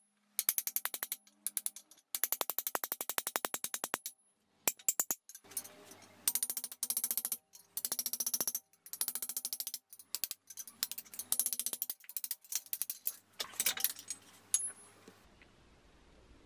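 Hammer striking a steel chisel to drive old handle wood out of the eye of a hatchet head clamped in a vise: rapid runs of sharp metallic taps, about ten a second, broken by short pauses.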